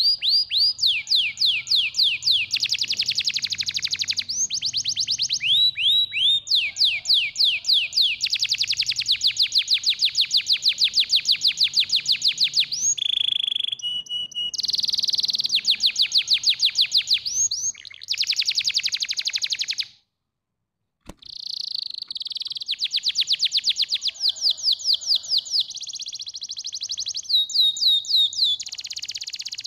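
Domestic canary singing its long song of fast trills, each phrase a quick run of rapidly repeated high notes that changes to a new trill every second or two. The song breaks off for about a second about two-thirds of the way through, then goes on.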